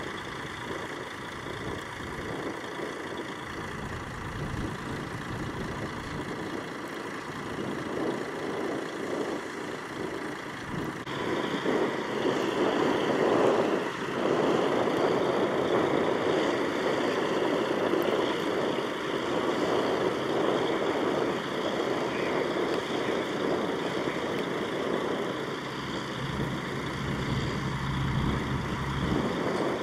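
Heavy vehicle engines running, a steady mechanical rumble that gets louder about eleven seconds in, with a low hum near the end.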